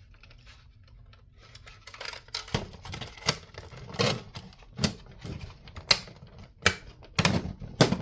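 Sharp, irregular clicks and knocks of plastic and metal radio parts being pried and handled as a metal speaker-grille mesh is worked loose from the radio's case. There are about a dozen, starting about two seconds in.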